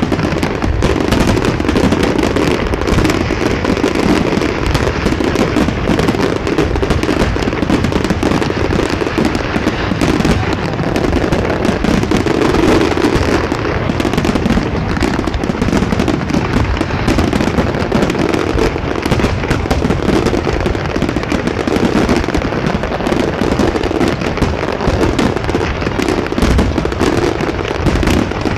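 Aerial fireworks going off in a dense, continuous barrage: rapid overlapping bangs and crackling with no let-up.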